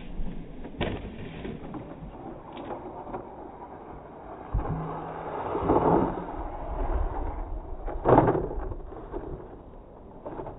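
RC off-road buggy scrabbling up a steep slope of loose sand and dirt, its tyres churning and spraying grit, with a few sharp knocks as it tumbles and lands, the loudest about eight seconds in.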